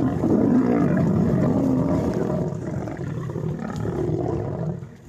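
A lion growling and roaring in a deep, rough, continuous sound, loudest in the first couple of seconds and fading toward the end.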